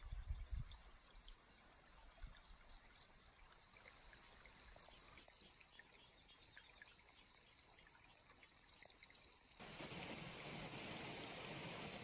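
Faint, steady high-pitched trill of a grass insect singing, starting about four seconds in and stopping near the end. A few low thumps come at the start, and a louder rushing hiss of flowing stream water comes in about ten seconds in.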